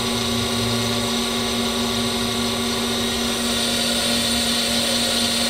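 Brown & Sharpe Micromaster 618 surface grinder running with its spindle and hydraulic pump on and the wheel spinning free, not cutting: a steady hum with a constant low tone.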